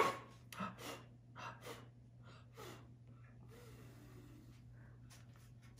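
Several short, soft breathy sniffs and puffs, about one a second over the first three seconds, then only a faint steady low hum.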